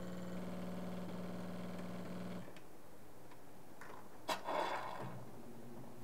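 Jura J8 super-automatic espresso machine's pump running with a steady hum as it pushes water through the coffee for the second half of a double espresso. The hum cuts off about two and a half seconds in, marking the end of the brew cycle. A brief, softer noise follows about four seconds in.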